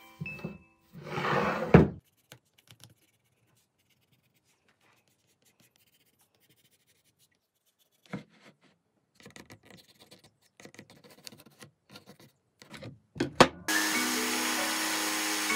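A Bosch jigsaw starts near the end and runs steadily, cutting through a live-edge olive wood slab; this is the loudest sound. Before it, a wooden template rubs and knocks on a wooden workbench, and later a pencil scratches faintly as it traces the cutting line.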